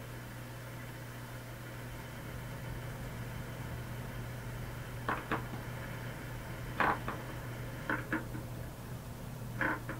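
Steady low electrical hum with background hiss. In the second half come about seven short, sharp clicks in small clusters.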